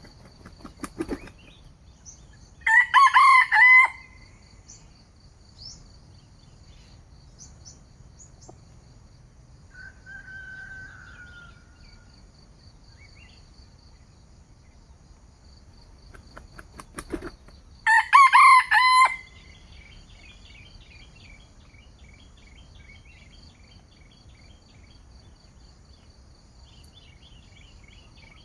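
A rooster crowing twice, each crow about a second long and some fifteen seconds apart, over a steady high insect trill.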